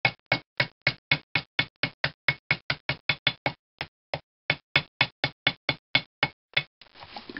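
A ball peen hammer tapping quickly and evenly around the edge of a sheet of gasket material to cut out a round engine head gasket, about four to five light taps a second. There is one short pause in the middle, and the taps stop shortly before the end.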